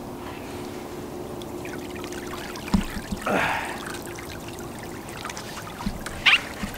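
Water trickling and splashing off a wire crab trap as it is hauled up to the surface on a rope, with a sharp knock a little under three seconds in.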